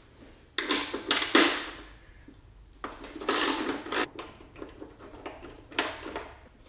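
Socket ratchet being worked on the bolts of a motorcycle's passenger foot-peg mount, clicking in several short bursts with pauses between them as the bolts are loosened for removal.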